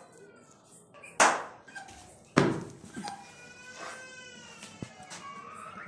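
Animal calls: two loud, harsh, sudden cries about a second apart, then one long, wavering, pitched call.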